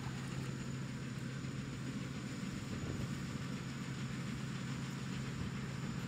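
An engine running steadily: an even low hum over a constant noisy hiss.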